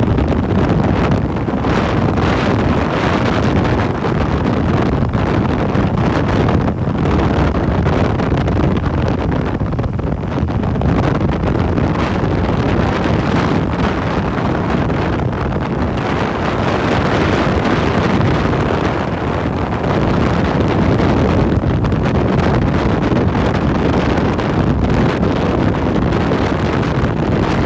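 Motorcycle ride with heavy wind buffeting the microphone, the bike's engine running underneath, loud and steady throughout.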